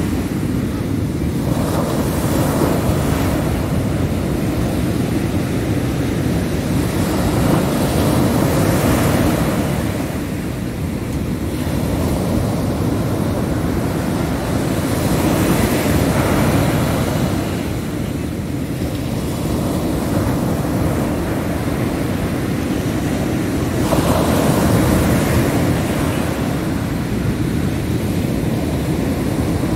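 Ocean surf breaking on a sandy beach: a continuous wash of water that swells louder every several seconds as each wave breaks, over a steady low rumble.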